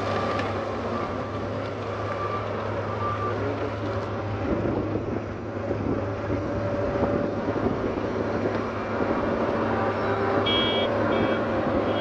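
Diesel engines of a Case IH 4010 sugarcane harvester and its haul-out tractor running steadily under load, a constant heavy machine hum. A few short high beeps sound about ten seconds in.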